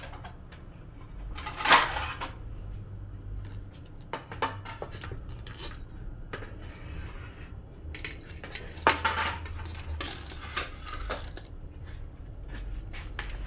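A metal slotted spatula knocking and scraping against a steel pot and clattering among cooked crab shells as the crabs are lifted out into a plastic basin: a run of scattered clinks and knocks, with a sharp clank about two seconds in and another loud cluster near nine seconds.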